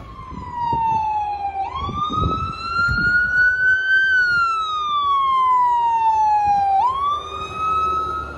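Salem Fire Engine 7's siren sounding a wail. Its pitch falls, sweeps quickly back up about two seconds in, drifts slowly higher, falls again, and sweeps up once more near the end.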